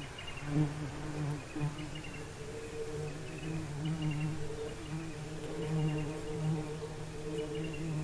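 Honeybee buzzing in flight, a low hum that swells and fades as it moves about. Faint short high chirps repeat about once a second.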